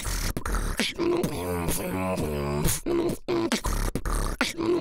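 Beatboxing: a steady hip-hop beat made with the mouth, with deep bass thumps, crisp hi-hat-like clicks and gliding pitched vocal sounds.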